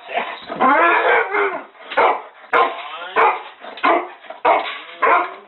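A dog lets out a long, wavering whining call, then barks about six times at a steady pace, a bark every half second or so.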